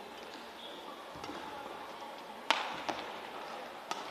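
Badminton rackets striking the shuttlecock in a rally: sharp, single hits, the loudest about two and a half seconds in, followed by a couple of lighter knocks, over a faint steady arena background.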